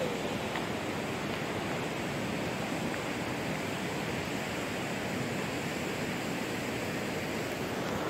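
Steady, even rushing of water in the ravine below, unbroken throughout.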